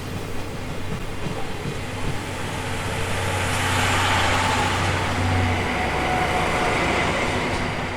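A train running past: a rushing noise that swells to its loudest about halfway through and then eases, over a steady low hum.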